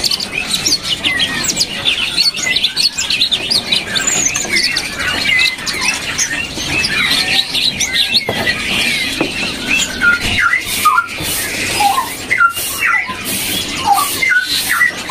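Many caged songbirds chirping and singing together, a dense chatter of high notes. About two-thirds of the way through, lower, fuller whistled notes stand out more clearly, with a few sharp clicks among them.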